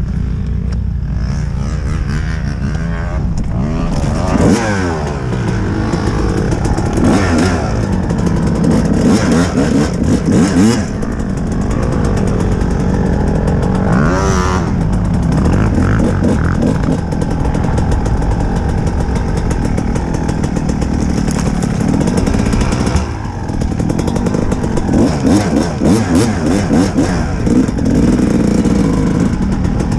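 Kawasaki dirt bike engine heard from the rider's position, revving up and dropping back again and again as the throttle is opened and closed, with a brief drop in power about three-quarters of the way through.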